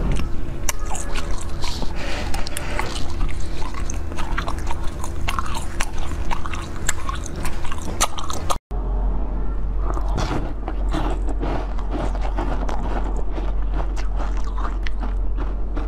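Close-miked biting and chewing of novelty sweets, many sharp clicks in quick succession. The first is a green ball-shaped sweet; after a sudden cut about two-thirds of the way through, it is a purple corn-cob-shaped one.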